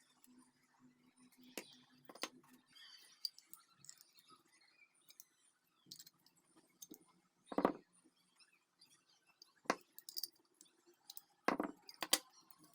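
Scattered faint clicks and clinks of small metal parts being handled, with a louder knock about halfway through and another near the end.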